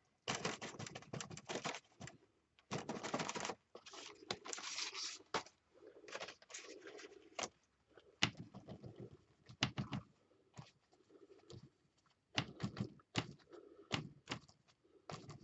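Paint being worked onto a paper journal page with a brush or sponge: irregular bursts of scratchy strokes and dabs, some about a second long, with short taps in between.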